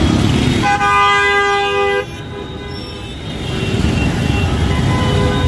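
Busy road traffic: engines running in a dense low rumble. Near the start, a loud vehicle horn sounds for a little over a second and cuts off sharply. Fainter horns from other vehicles sound around it.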